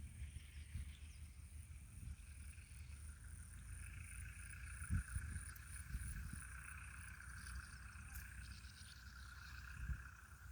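A chorus of calling insects: a steady high trill, with a faster, evenly pulsed chirp above it, over a low rumble and a few soft knocks on the microphone.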